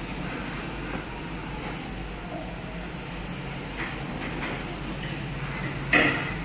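Steady low mechanical rumble with a few faint clicks, and one sharp clack about six seconds in.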